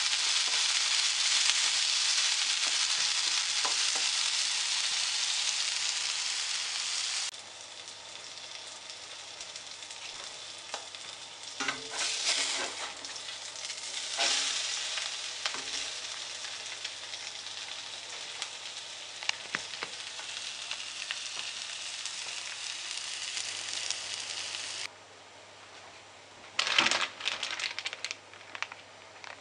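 Bean sprouts and egg sizzling in an iron wok, loud at first and quieter after about seven seconds, with a few clatters of a utensil against the pan. Near the end, a plastic noodle bag crinkles.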